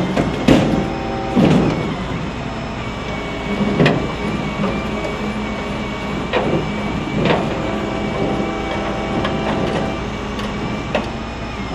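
Steady hum of road traffic and idling vehicles, with several short knocks scattered through it.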